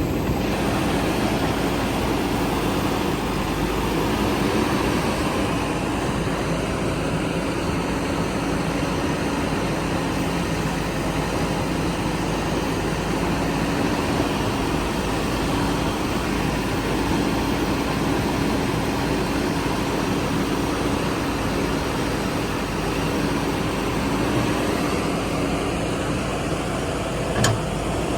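Heavy diesel engine of earth-moving machinery running steadily with a constant hum, and one sharp knock near the end.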